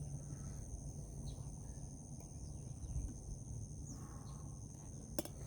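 Insects droning steadily at two high pitches over a low rumble, with a single sharp click about five seconds in.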